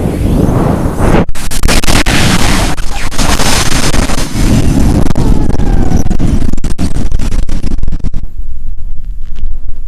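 Strong wind with rain, the gusts hitting the microphone as a heavy, loud rumble with sudden buffeting bursts. The high hiss fades out about eight seconds in, leaving mostly the low wind rumble.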